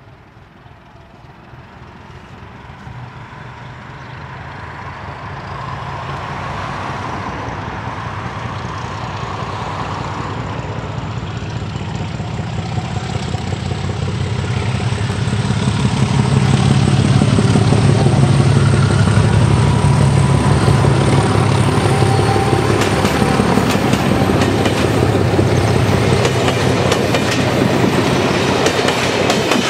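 ČD class 749 diesel locomotive approaching with its diesel engine running, growing steadily louder over the first half. The passenger coaches then roll close past with wheels clattering over the rail joints.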